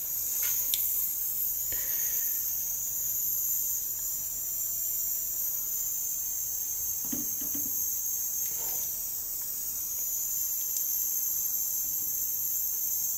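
Steady high-pitched hiss of background noise, with a couple of faint soft handling noises about seven and nine seconds in.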